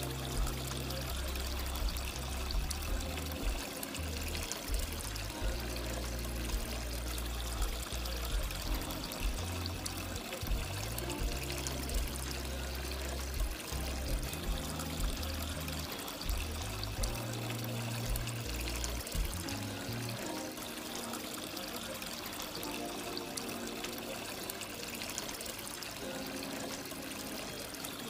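Water from a small cement garden fountain steadily trickling and splashing over rocks and down a ridged cement wall, under background music whose low bass notes drop out about two-thirds of the way through.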